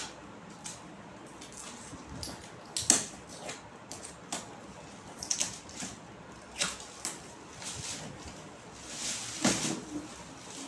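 Wrapping paper and a cardboard box being handled and torn open by hand: scattered short crackles and taps, with a longer rustle about nine seconds in.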